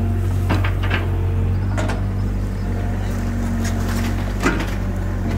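Caterpillar tracked excavator's diesel engine running steadily under load while the bucket digs out soil and roots around a palm trunk, with several sharp knocks and clanks from the bucket and arm.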